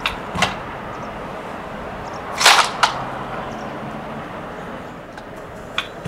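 Stihl MS 500i chainsaw's recoil starter yanked once: a short, sharp whirring rasp about two and a half seconds in, with a smaller one just after, and the engine does not catch. A few light clicks come before it and near the end.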